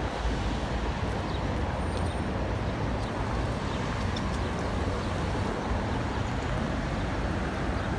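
Steady road traffic noise from cars on a wide multi-lane city road: a continuous even rumble with no single vehicle standing out.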